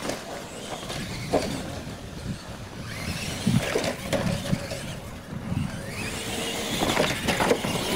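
Radio-controlled monster trucks racing on a dirt track, motors running and tyres on loose dirt, with a faint rising whine just past the middle.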